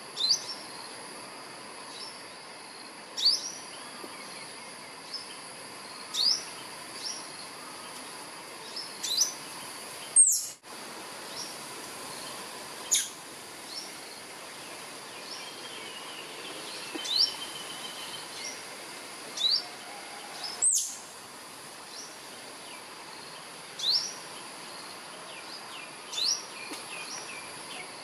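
Tree squirrel (albino form) giving short, sharp rising chirps, one every two to three seconds: its call for a mate. A steady high insect drone runs behind, and two sharp clicks come about ten seconds in and again about twenty seconds in.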